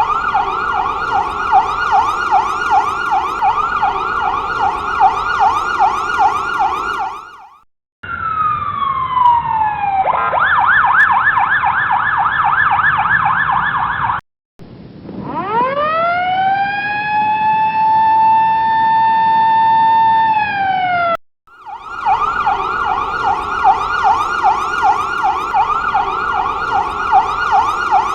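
Ambulance sirens in several patterns, one after another with brief gaps. First a fast warble, then a falling sweep that switches to the fast warble about ten seconds in. Next comes a tone that rises, holds steady and dips at its end, and finally the fast warble returns.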